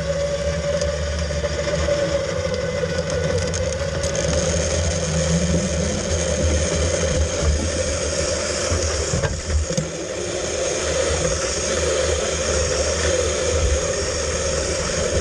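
Cable rocket log carriage running along its overhead steel cable on its pulleys: a steady rolling rumble with a high whine over it. The sound is the sign that the carriage is moving.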